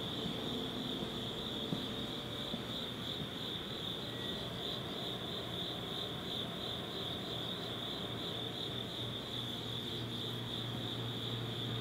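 Steady high-pitched chirring of night insects, a continuous trill with a slight pulse. A faint low hum underneath grows louder near the end.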